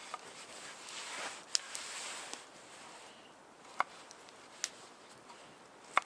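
Knife cutting vegetables on a bamboo cutting board: four sharp knocks at uneven intervals, with soft rustling in the first half.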